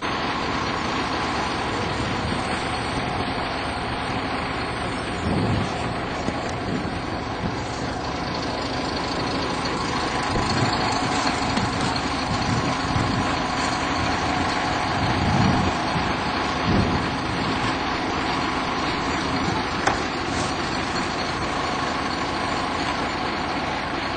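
A vehicle's engine running steadily with road noise, heard from inside the vehicle, with a few low thuds.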